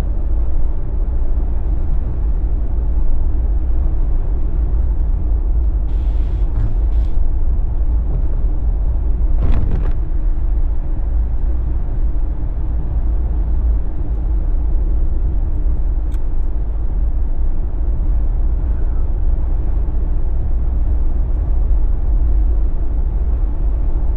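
Jeep on BFGoodrich KO3 all-terrain tyres driving on the highway: a steady, loud low rumble of road and engine noise, with a couple of brief hisses about six and nine and a half seconds in.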